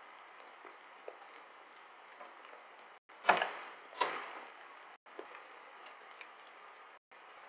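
Steady hiss of rain and hail falling, heard through a security camera's microphone. About three seconds in come two loud sharp knocks, under a second apart, that fit hailstones striking the camera or the wall beside it, and the sound cuts out briefly about every two seconds.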